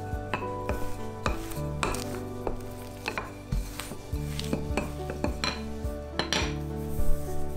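Wooden rolling pin rolling and knocking on a countertop as it flattens bread dough, a string of irregular clacks. Soft background music runs underneath.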